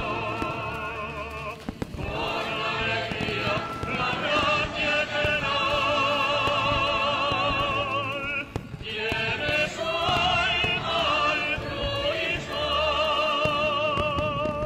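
Operatic singing over music: a solo voice with heavy vibrato holds long notes, with short breaths between phrases about two seconds in and again past the middle.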